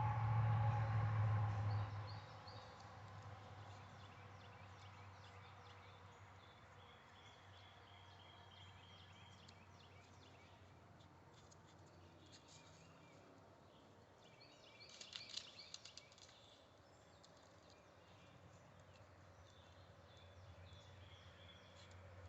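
Faint background ambience with a few short, faint high chirps. A low hum fades out in the first two seconds, and a brief cluster of clicks comes about fifteen seconds in.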